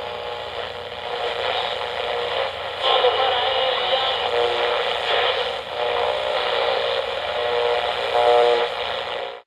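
Thin, old-radio-sounding static: a dense hiss with faint snatches of tones and voices drifting in and out. It cuts off abruptly at the end.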